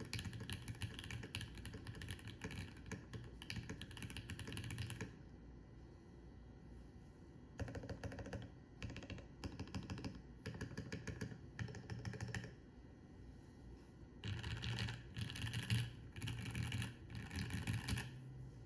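Typing on a Brutal65 V2 65% mechanical keyboard with lubed, filmed, spring-swapped Gateron Milky Yellow linear switches, GMK Fuji keycaps, and plate and case foam. Steady runs of keystrokes pause briefly about five seconds in and again about twelve seconds in, then resume in quick bursts.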